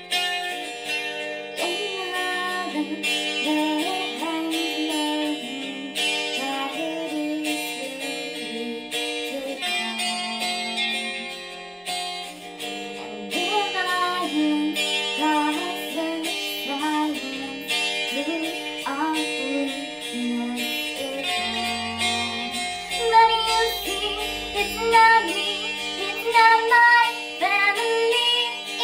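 A song: a singing voice, electronically altered to disguise it, over plucked guitar accompaniment.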